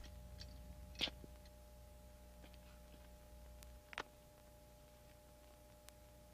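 Near silence: faint soundtrack hum and hiss with a few short clicks, the clearest about a second in and about four seconds in.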